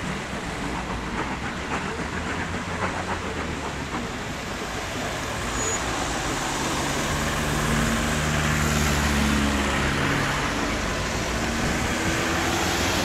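Road traffic: cars and trucks passing on the road ahead. A heavy vehicle's engine grows louder from about halfway through and holds several steady low tones.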